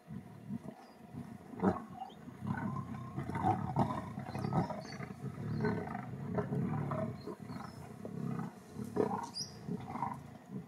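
A pride of lions feeding together on a kill, growling and snarling at one another over the carcass: a continuous uneven low rumble, with sharper snarls about two seconds in and again near the end.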